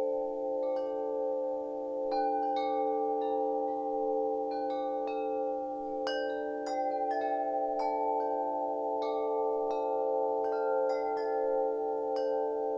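Wind chimes ringing, struck at irregular intervals one or two times a second, their lower tones sustaining and overlapping into a continuous wavering ring beneath the brighter strikes.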